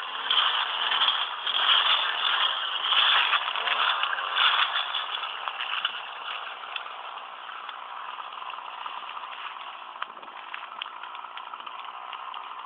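Burning brush and grass: a loud rushing noise that swells and fades several times in the first half, then settles into a steadier hiss with sharp crackles.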